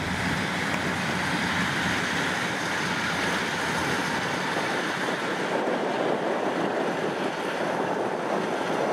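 Kubota DC-105X combine harvester cutting and threshing rice, a steady rush of engine and threshing noise with no distinct engine note. The machine keeps jamming on the crop, which the onlooker suspects is a clogged threshing chamber.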